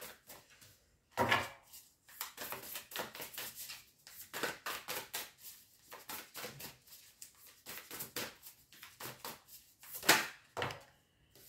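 A deck of tarot cards being shuffled by hand: a run of quick, irregular papery flicks and taps as cards slide off and drop onto the deck. There is a louder slap about a second in and another near the end.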